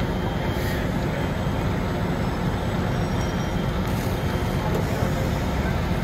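Fire truck's diesel engine running steadily, a constant low rumble, as it powers the raised aerial ladder's water stream.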